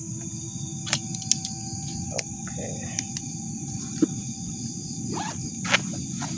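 Crickets chirping steadily in a high, even band. Several sharp clicks or knocks are scattered through it, the loudest about four seconds in and near the end.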